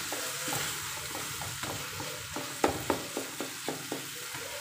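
Wooden spatula stirring potato and capsicum gravy in a non-stick pan, tapping against the pan in a run of light knocks about three a second that stops near the end. Under it is a steady sizzling hiss from the curry cooking on the stove.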